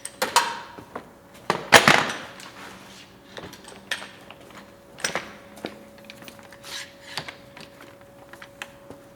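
Knocks and clatters from tools and MDF strips being handled and set down on a workbench while the work is set up for routing. The loudest clatter comes about two seconds in, followed by lighter knocks.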